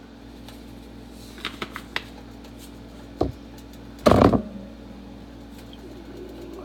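Spice containers handled at a kitchen counter: a few light clicks, a knock about three seconds in and a louder clunk about four seconds in, over a steady low hum.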